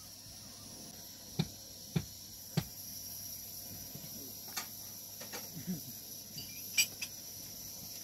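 Three dull knocks about half a second apart, then a few lighter taps and clicks, over a steady high-pitched insect hiss.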